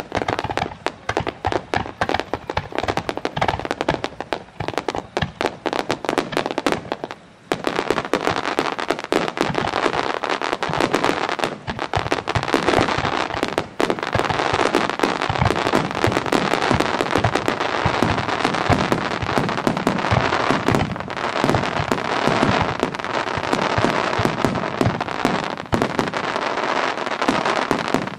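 Aerial fireworks going off: many bursts and bangs in quick succession. They come as separate bangs with short gaps at first, then about seven seconds in they turn into a dense, nearly continuous barrage.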